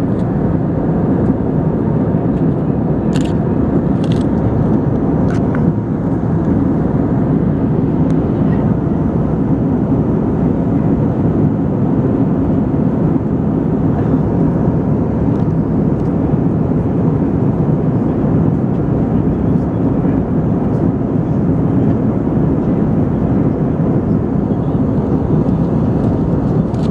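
Steady cabin noise of an Airbus A320-214 in flight, heard from a window seat: an even rush of engines and airflow. A few faint clicks come about three to five seconds in.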